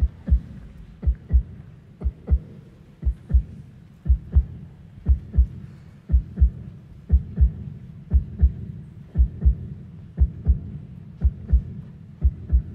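A heartbeat sound, a double low thump (lub-dub) repeating about once a second, over a steady low hum.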